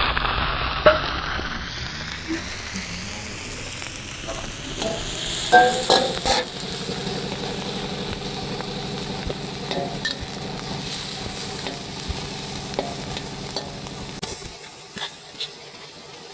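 Food sizzling as it is stir-fried in a pan, with a metal spatula clicking and scraping against the pan now and then. A low steady hum under it stops near the end.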